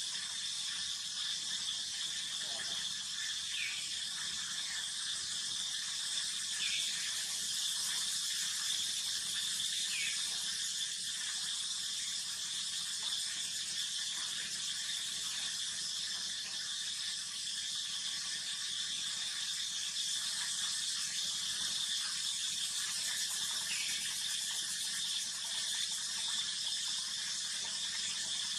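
Steady high-pitched insect buzzing, with a few brief chirps scattered through it.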